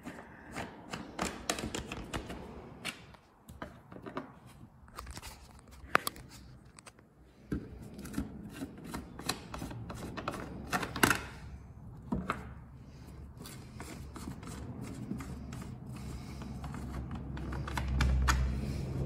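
Scattered small clicks, taps and scrapes of threaded cap nuts being hand-turned on 6 mm studs and a cover being handled. A low rumble swells near the end.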